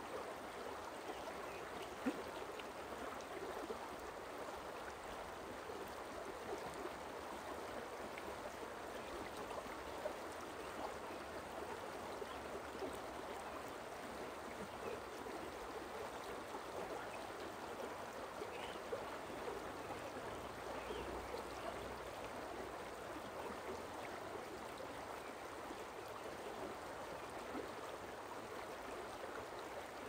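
Forest stream running: a steady rush of water, with a few brief louder flecks in it.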